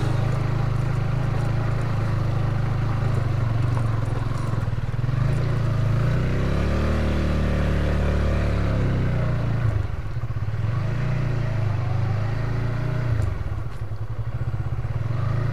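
Motorcycle engine running while being ridden over a rough dirt track. Its note rises about six seconds in, drops back around ten seconds, then rises and eases off again near the end.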